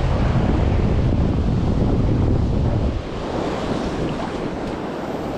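Rough surf washing and breaking on a rocky shoreline, with wind buffeting the microphone; the heavy low rumble eases off suddenly about three seconds in.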